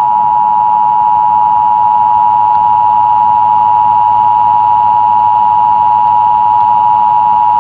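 Emergency Alert System two-tone attention signal: two steady, loud tones (853 and 960 Hz) sounding together without change, then cutting off suddenly at the end. It is the alert tone that announces an emergency broadcast message is about to follow.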